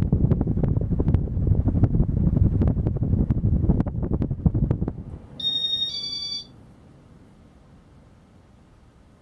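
Casablanca ceiling fan's air wash buffeting the microphone, a rumbling rush with rapid clicks, for about five seconds. Then two short electronic beeps at different pitches, typical of the Inteli-Touch control taking a command, after which the rush drops away to a faint hiss.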